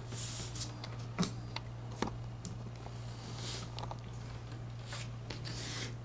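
Small clicks and soft rustling as an RG6 coaxial cable with its F-connector is handled and seated in a plastic compression crimp tool, with two sharper clicks about a second and two seconds in. A steady low hum runs underneath.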